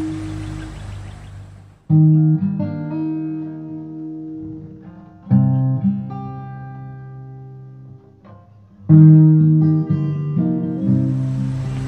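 Background guitar music: three chords are strummed and left to ring out, about three and a half seconds apart.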